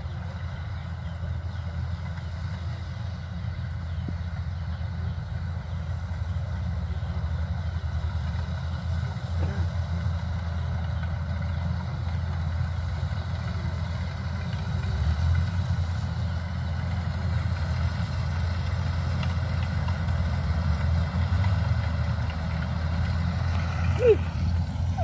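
Kubota DC-105X combine harvester's diesel engine running steadily at a distance, slowly getting louder as the machine comes nearer. A single short knock near the end.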